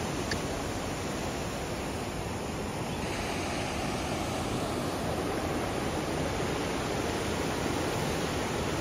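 Steady rush of fast-flowing river water churning over rapids.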